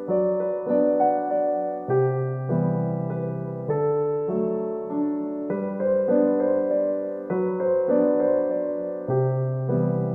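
Gentle background piano music: soft sustained chords changing about every second or two in a slow, even rhythm.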